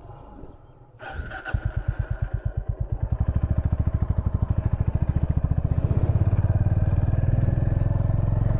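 Honda CB350 H'ness single-cylinder four-stroke engine starting about a second in, then running with an even, low thump of firing beats that quicken slightly a couple of seconds later.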